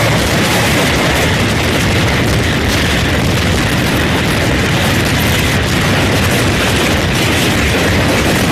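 A moving diesel train's loud, steady running noise: a dense rumble and rush of wheels, engine and air with no clear tones or breaks.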